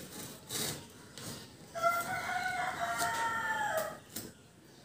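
Snap-off utility knife blade scraping through packing tape on a cardboard carton in a few short strokes. A loud, high, drawn-out call of about two seconds comes in the middle and falls in pitch at its end.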